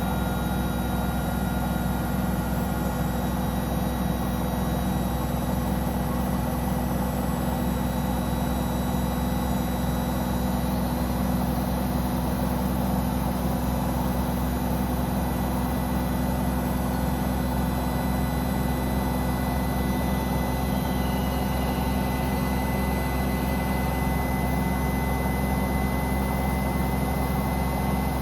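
Samsung Eco Bubble digital inverter washing machine running a test spin, its drum motor turning steadily with a constant hum and a high whine; the whine shifts slightly in pitch about three quarters of the way through.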